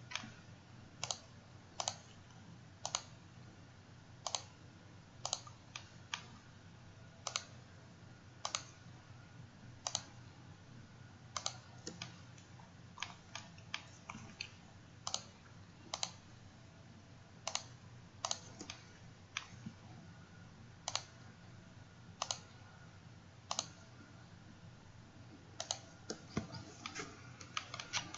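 Computer mouse clicking: single sharp clicks, mostly about a second apart, with quicker runs of clicks in places, over a faint low hum.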